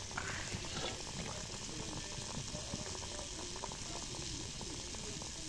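Malpua batter deep-frying in hot oil in a black wok: a steady bubbling sizzle.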